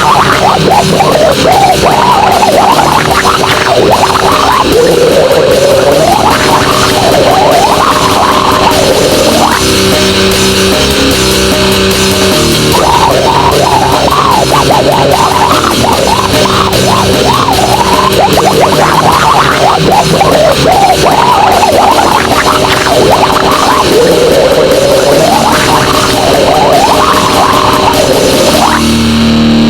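Goregrind noise music: dense, loud distorted noise with squealing pitch sweeps and droning held tones.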